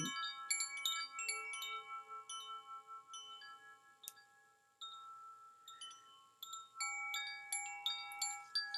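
Zaphir summer chime, tuned to G sharp, B, C, C sharp, E and A, ringing as its clapper strikes the tubes in scattered light strikes whose bright tones ring on and overlap. The ringing fades almost away about halfway through, then a fresh flurry of strikes comes about seven seconds in.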